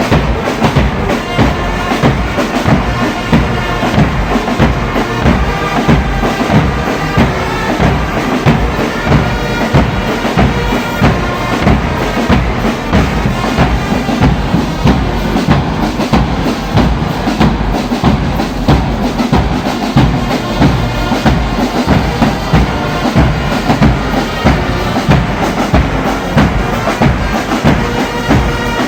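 Brass band playing a hymn-like tune with held wind-instrument chords over a steady bass-drum beat.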